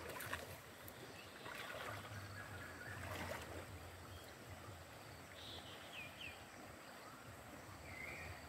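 Cast net being hauled in through shallow river water, with irregular splashing and sloshing, busiest in the first few seconds. A few short bird chirps come about five to six seconds in and again near the end.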